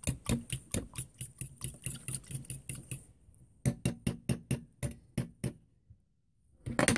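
Fork beating eggs in a stainless steel saucepan, clinking against the pan about four to five times a second, with a short break about three seconds in, then stopping. A brief clatter near the end.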